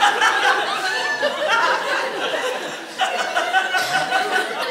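Theatre audience laughing, many voices at once, dipping briefly and rising again about three seconds in.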